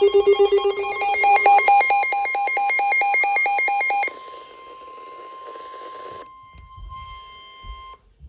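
Electronic weather-alert tones from a radio receiver. A rapidly pulsing beep changes into a fast two-tone warble, which gives way about four seconds in to a single steady tone over static. That tone is typical of the NOAA Weather Radio 1050 Hz warning alarm, which announces a warning such as a flash flood warning. The steady tone weakens a couple of seconds later and cuts off just before the end.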